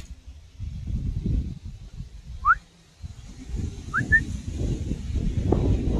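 A person whistling: one upward-sliding whistle about two and a half seconds in, then a short rising two-note whistle about a second and a half later, over a low rumbling noise.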